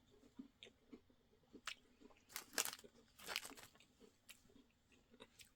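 Crisp strawberry tart cookie being bitten and chewed: faint crunching and small clicks, loudest in two short bouts about two and a half and three and a half seconds in.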